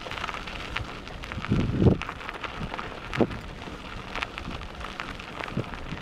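Bicycle tyres crunching and crackling over a loose gravel track, with a steady scatter of irregular small clicks from stones and a louder low rumble about two seconds in.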